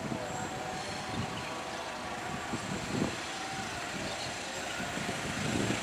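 Diesel-electric locomotive hauling a passenger train, approaching from a distance: a low engine drone over a steady background hum, growing slightly louder near the end.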